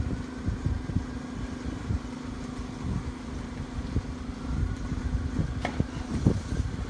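A steady low machine hum, like an idling engine or a fan, with irregular low rumbles and knocks from the phone being handled.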